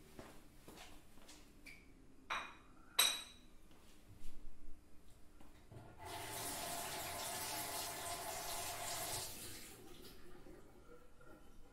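A few sharp clinks and knocks, then water running steadily for about three seconds before stopping.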